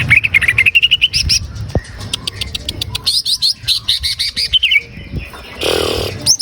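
Greater green leafbird (cucak ijo) singing: fast runs of short, sharp chirps that climb in pitch, in several bursts with a brief pause about five seconds in.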